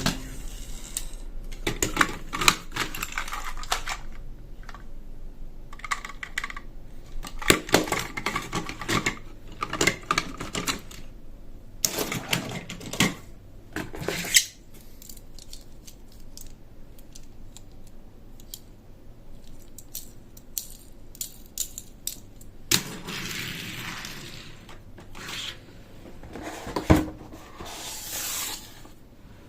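Hard plastic toy pieces clicking and clattering as they are handled, with a run of sharp clicks over the first half, a quieter stretch, then a rustle and a few more clicks near the end.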